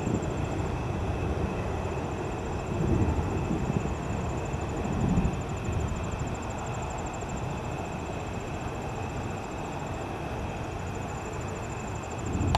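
Distant thunder rumbling over a steady outdoor hiss, swelling about three seconds in and again about five seconds in.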